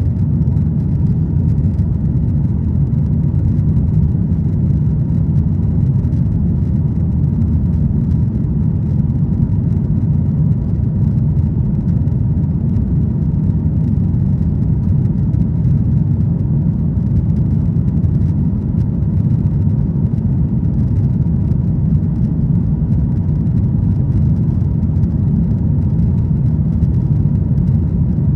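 Steady low rumble of engine and airflow noise inside a Boeing 737-900ER cabin near the tail, from its twin CFM56-7B turbofans.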